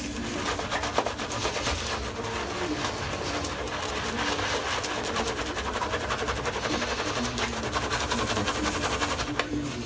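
Shaving brush scrubbing thick shaving-soap lather into a bearded face, a steady, rapid swishing crackle of bristles working through the foam.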